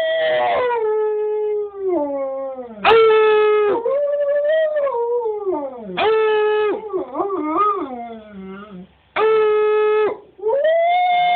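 Husky–wolf hybrid howling: a string of long howls with short breaks between them. Some howls swoop up and fall away, others are held on one steady note.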